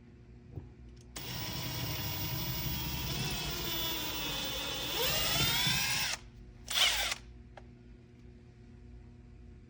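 Electric drill boring a pilot hole into a wall stud: the motor runs for about five seconds, its whine dipping and recovering in pitch as the bit loads up in the wood, then stops. A short second burst of drilling follows about a second later.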